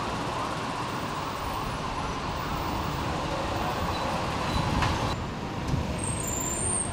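Street traffic noise: the steady sound of passing road vehicles.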